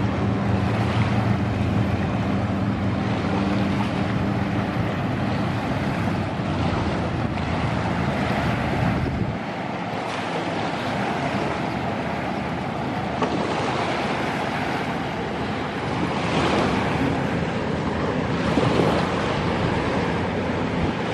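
Steady low hum of a cabin cruiser's engine motoring past, under wind rushing on the microphone. The engine hum stops abruptly about nine seconds in, leaving only the wind noise.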